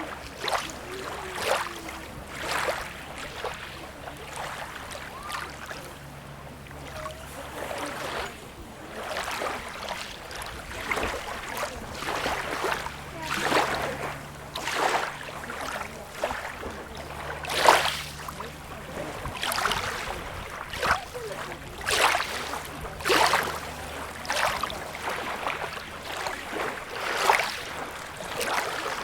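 Small sea waves lapping and splashing at the shoreline: a steady wash of water broken by short splashes in irregular succession, roughly one a second.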